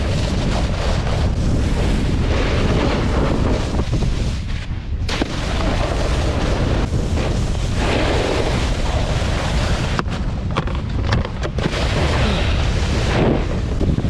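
Wind buffeting the microphone in a heavy, uneven rumble while riding a snowboard, with the rush of the board sliding over snow. A few sharp clicks come about ten to eleven seconds in.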